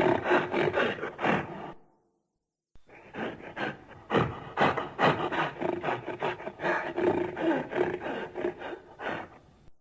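Monster growl sound effect, rough and rasping: a short growl of under two seconds, then after about a second's pause a longer growl of several seconds.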